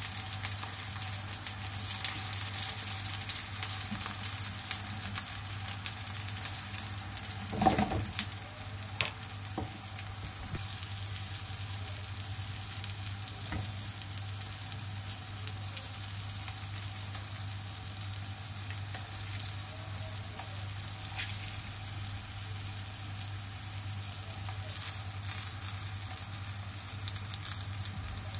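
Food frying in hot oil in a pan, a steady sizzle with scattered clicks. There is one louder knock about eight seconds in and a low steady hum underneath.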